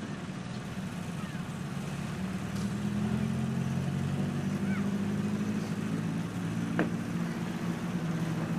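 A steady low engine hum, like a motor idling, running on without a break and shifting slightly in pitch about three seconds in.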